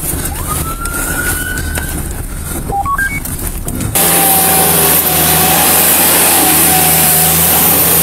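A vehicle's low engine hum with a short rising run of electronic beeps. About four seconds in, this gives way to a louder outdoor stretch: a skid-steer loader's engine running as the machine drives off, with a steady, slightly wavering whine over a rushing hiss.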